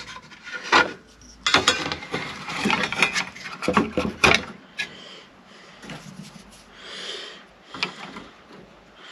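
Clicks, knocks and scraping from a circular saw edge guide being handled and slid into position on its rail while the blade-to-edge distance is set. The sounds come in a busy cluster in the first half, with a last sharp knock near the end. The saw is not running.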